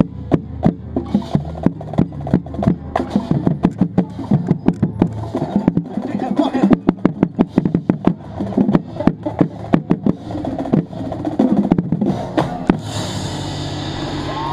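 A marching band plays, heard close up from among the tuned marching bass drums: rapid drumline strikes and low pitched bass drum notes over the band. The playing stops about a second before the end, giving way to voices and cheering.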